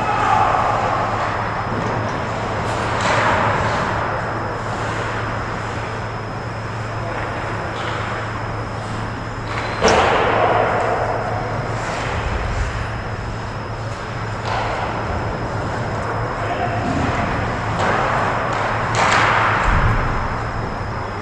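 Ice hockey game in an echoing rink: a steady low hum with a faint high tone over it, broken by three sharp echoing cracks of pucks and sticks, the loudest about ten seconds in, with faint distant shouts of players.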